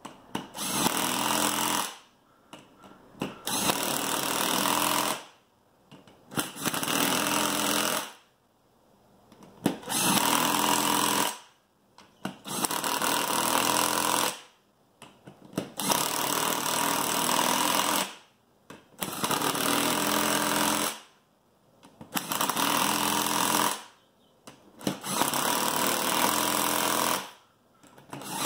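Power tool running beadlock ring bolts down in short bursts of one to two seconds each, about nine in a row with brief pauses between them as it moves from bolt to bolt around the ring.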